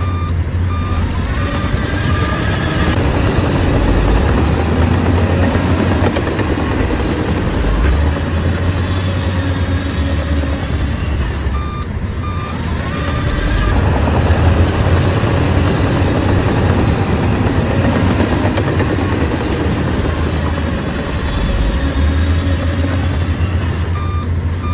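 Heavy diesel engine of a bulldozer running hard, a steady low rumble. Short runs of reversing-alarm beeps sound near the start, about midway and again near the end.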